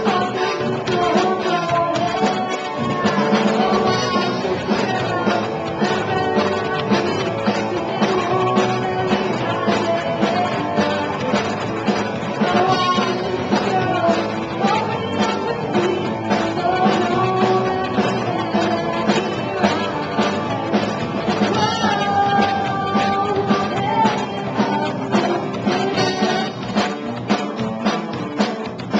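Live rock band playing: a woman sings into a microphone over electric guitars and a Mapex drum kit.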